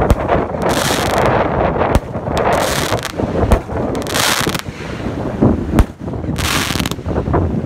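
Consumer aerial fireworks bursting overhead: about four sharp bangs roughly two seconds apart, with short bursts of hiss in between and smaller pops near the end, over steady wind on the microphone.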